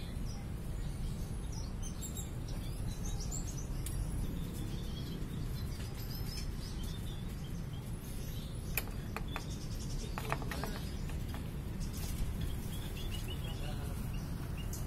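Small finches chirping now and then, short high calls over a steady low background rumble, with a cluster of sharper chirps about nine to ten seconds in.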